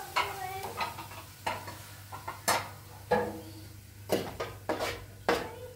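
A kitchen utensil knocking against a pot: about nine sharp clinks at uneven intervals, some with a short ring, over a low steady hum.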